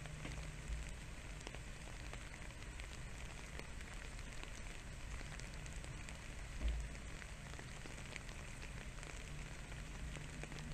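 Steady faint pattering and crackling with a low rumble underneath, and one brief dull bump about two-thirds of the way through.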